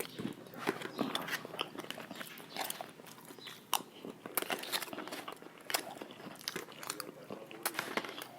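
A person biting into and chewing crispy fried chicken, with many sharp, irregular crunches.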